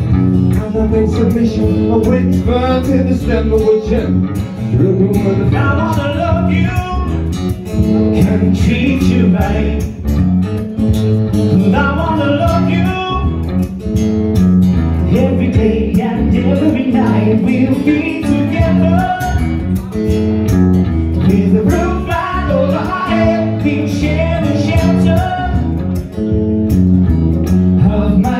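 A live band playing a blues-tinged song: singing over acoustic guitar and electric bass guitar, with a drum kit keeping the beat.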